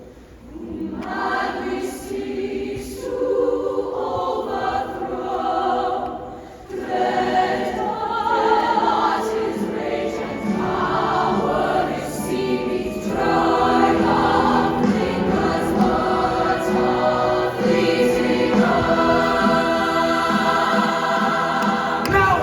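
Show choir singing in harmony, backed by a live band. The music dips briefly about six seconds in, then swells fuller and louder.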